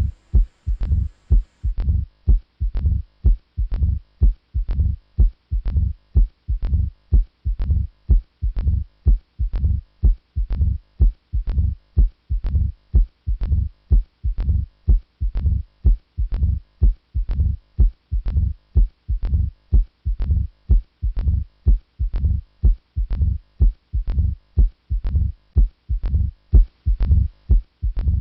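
Recorded heart sounds through a stethoscope: a steady, regular heartbeat with most of its energy low. It is given as the example of mitral stenosis, whose murmur is a faint early-diastolic rumble with presystolic accentuation.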